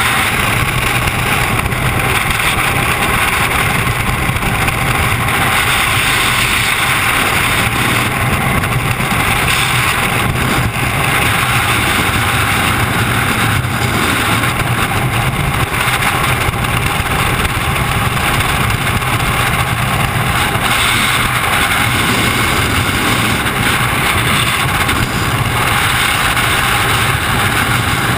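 Freefall wind rushing steadily and loudly over a skydiver's camera microphone.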